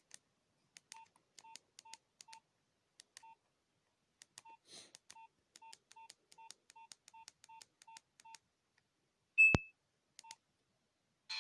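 Nokia 1661 mobile phone keypad being pressed: a run of short, same-pitched key beeps, each with a faint click, about fifteen in all at an uneven pace. About nine and a half seconds in comes one louder, higher beep with a thump.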